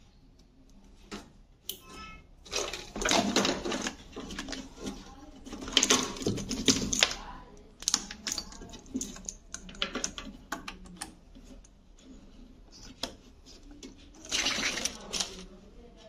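Hands handling wiring connectors and a sheet-metal bracket inside a front-load washing machine: a run of sharp plastic clicks and three louder bursts of rattling and scraping.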